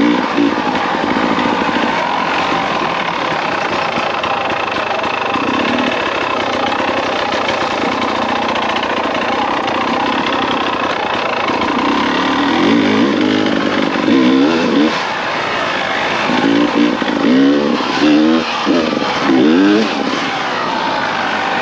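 Beta 300RR two-stroke enduro motorcycle's engine running under way, its revs rising and falling. In the second half comes a run of short throttle blips, each a quick climb and drop in pitch.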